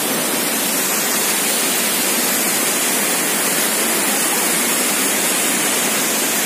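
A large waterfall pouring over rocks: a loud, steady rush of water.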